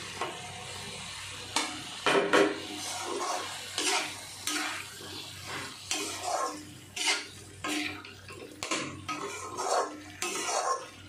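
Metal spatula scraping and knocking against a metal kadai as cubed watermelon rind and potato are stirred into frying masala, in irregular strokes about once a second. A soft sizzle sits under the first second or so.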